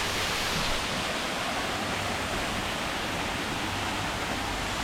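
Steady rush of water falling over a waterfall cascade, an even unbroken noise.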